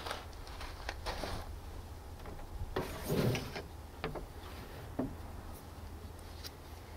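A few rubbing and knocking sounds: light scrapes about a second in, a louder short scuffing rush about three seconds in, then two sharp clicks a second apart.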